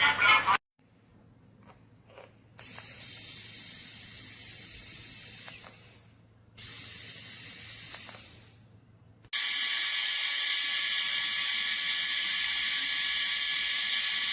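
A small high-speed electric motor, the mini electric drill pen, runs with a steady high-pitched whine that starts abruptly about nine seconds in. Before that, a faint hiss comes and goes twice.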